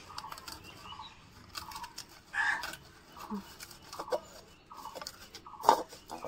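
A metal spoon scraping and clinking against a steel bowl as a thick, spicy raw-mango mash is stirred, with one sharp clink near the end. A hen clucks repeatedly in the background.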